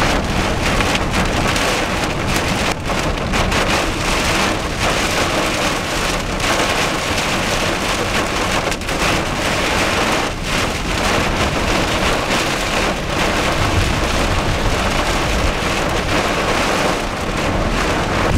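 Hail and heavy rain pelting a car's roof and windshield, heard from inside the moving car: a dense, steady clatter of many separate hits over a low road rumble.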